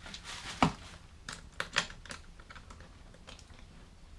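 Sharp clicks and knocks of small mounting hardware being handled as the soft pannier's back plate is taken off its mount, with the two loudest knocks about half a second and nearly two seconds in.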